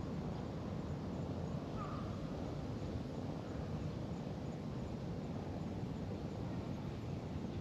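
Steady outdoor background noise, mostly a low rumble, with one brief faint bird call about two seconds in.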